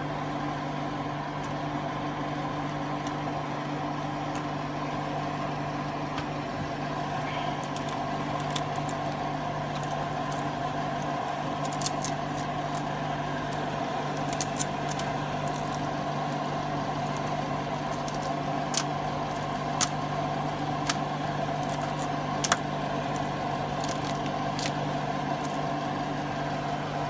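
Kitchen exhaust fan running with a steady hum. Over it come scattered sharp clicks and crinkles of aluminium foil as pieces of venison jerky are picked up and turned on a foil-lined baking tray, most of them from about a third of the way in.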